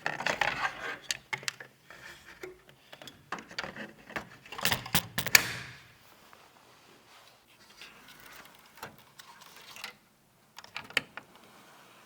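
Hands handling computer parts and their packaging: scattered sharp clicks and taps of plastic and metal, with rustling in the first second and again around the fifth second.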